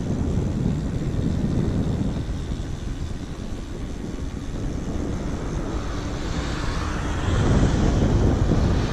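Wind rushing over the microphone of a camera on a bicycle rolling fast downhill, a steady low rumble that grows louder and brighter near the end.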